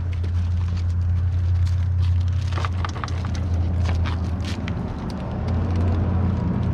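A vehicle engine running steadily as a low hum, with scattered small clicks and knocks over it.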